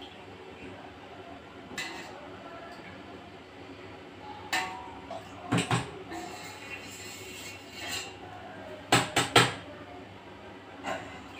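Stainless steel pots and metal utensils clinking and knocking on a gas stove: scattered sharp metallic clinks, with a quick run of three, the loudest, about nine seconds in.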